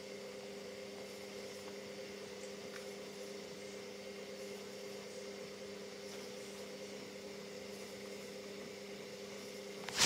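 Hoover Dynamic Next front-loading washing machine running a 90°C cotton wash: a steady mechanical hum as the drum turns. A sharp knock right at the end.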